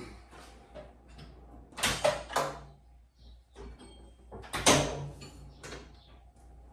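Tools and metal parts being handled: two loud scraping clatters, about two seconds in and again near five seconds, with smaller clicks between.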